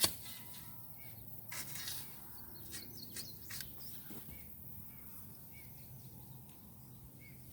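Occasional scrapes and rustles of digging in garden soil and pulling weeds, with a sharp click at the very start. Faint short bird chirps sound now and then.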